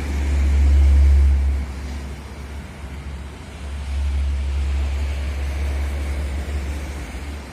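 Bus engine running with a deep low rumble. It is loudest in the first second and a half, eases off, and swells again about four seconds in.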